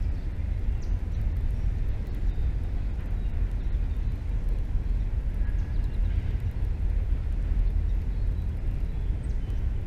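Steady low wind rumble buffeting the camera microphone.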